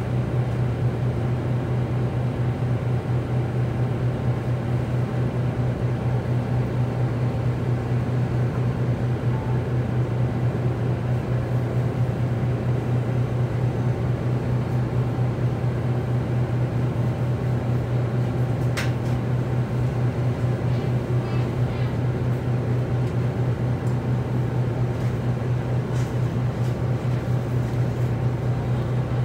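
Orion VII EPA10 transit bus engine idling steadily while the bus stands still, a low even hum with a fast throb. A single sharp click about nineteen seconds in.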